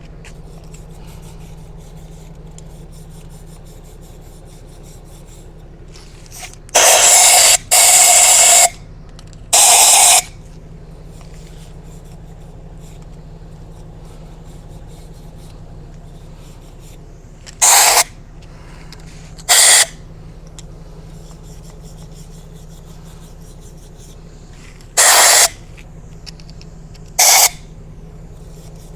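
Compressed-air blow nozzle fired in seven loud hissing blasts, clearing dust out of holes drilled in concrete. Three longer blasts come close together about a quarter of the way in, followed later by four short puffs. A steady low hum runs underneath.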